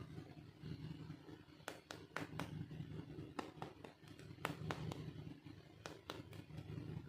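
Small toy pieces being handled, giving about a dozen light clicks and taps in quick groups of two or three, over a low steady hum.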